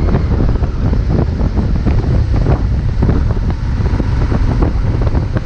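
Wind buffeting the microphone: a loud, steady low rumble with irregular gusty flutter.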